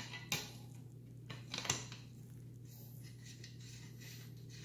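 A few sharp metallic clinks and knocks, the loudest near two seconds in, as a bicycle front wheel and its axle are fitted between the legs of a triple-tree fork. A steady low hum runs underneath.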